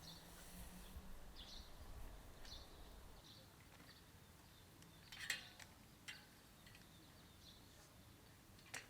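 Near silence with faint, short bird chirps in the first few seconds, then a few sharp clicks, the loudest about five seconds in.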